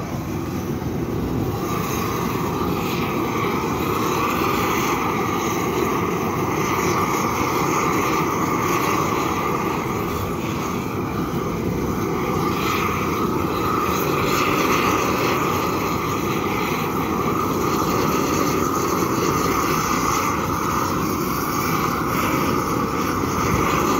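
Long-handled propane torch burning with a steady rushing flame while it heats the seam of a fresh asphalt patch. The sound holds constant, rising and falling only slightly as the torch is moved along.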